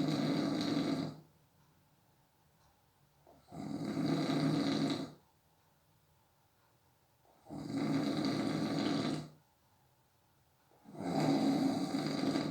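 A sleeping person snoring in a steady rhythm: a rough, rasping snore roughly every four seconds, four in all.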